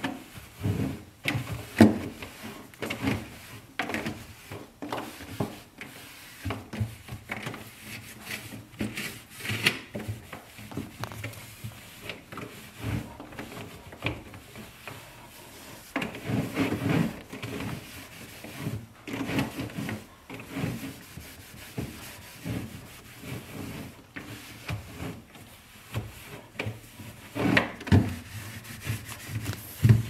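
A cloth wiping and rubbing the plastic inner liner of a Samsung refrigerator in uneven strokes, with occasional knocks against the plastic.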